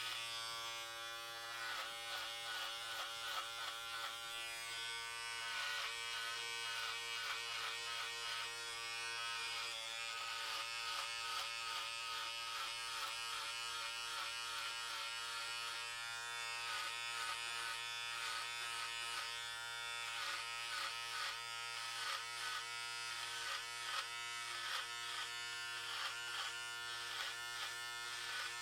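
Electric hair clippers running with a steady buzz while cutting hair. The buzz flutters and wavers slightly in level as the blades pass through the hair.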